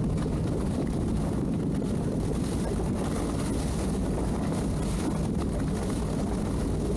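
Twin outboard motors of a towboat running with a steady low drone while pulling a 41 ft yacht in tow.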